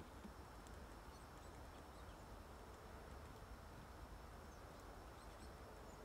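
Near silence: faint woodland ambience, a low steady hiss with a few faint, scattered high bird chirps.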